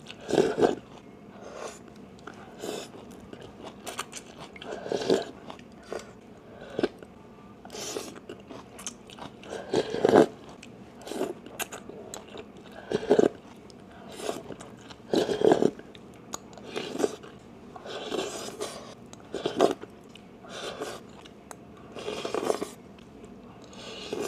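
Close-miked eating of pho: slurping rice noodles and broth off a spoon and chewing. The sounds come in short bursts every one to three seconds.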